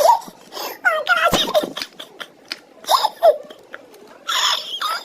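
A young boy laughing in short, high-pitched giggling bursts, ending in a couple of breathy laughs.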